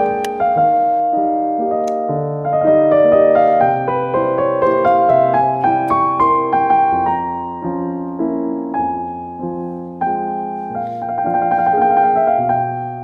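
Background piano music: a gentle piece of single melody notes over held low bass notes.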